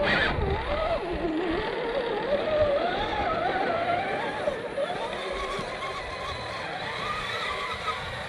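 Whine of a 1/10-scale RC crawler's electric motor and gearbox, its pitch rising and falling as the throttle is worked.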